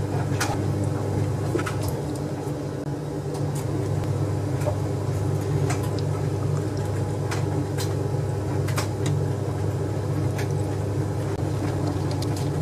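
Proxxon PD 250/E bench lathe running steadily: a low, even motor hum with a few light clicks scattered through it.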